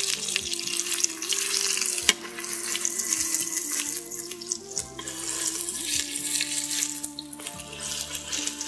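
Flour-dredged lamb chops searing in hot oil in the nonstick inner pot of a Breville fast cooker: a steady sizzle with small crackles, and a sharp click about two seconds in.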